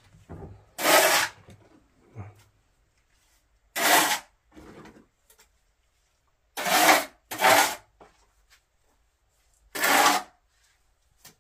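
Rough scraping strokes: five separate rasping scrapes of about half a second each, a few seconds apart, two of them close together near the middle.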